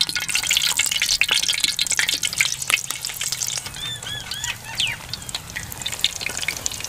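Pakora batter of rice and gram flour sizzling and crackling in hot oil in a large aluminium pot as balls of it are dropped in by hand. A bird calls several times in quick succession about four seconds in.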